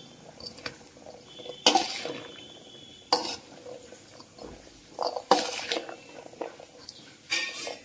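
A steel serving spoon stirs boiled black chickpeas in a stainless steel bowl, scraping and clanking against the bowl about four times, every second and a half to two seconds. The bowl rings briefly after the second clank.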